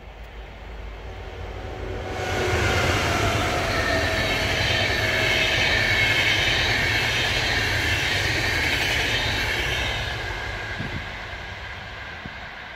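Double-decker InterCity electric train passing at speed: the rush of wheels on rails builds to a steady loud roar, with a faint whine that falls slightly in pitch, then fades over the last few seconds as the train pulls away.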